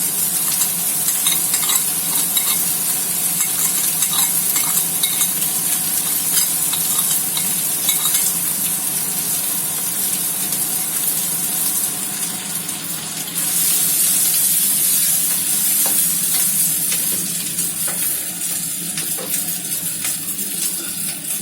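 Food sizzling in hot oil in a frying pan while a spatula stirs it, with scattered scraping clicks. The sizzle grows louder about two-thirds of the way through.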